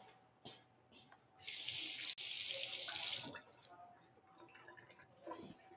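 A water tap running for about two seconds, a steady hiss of water that starts and stops abruptly.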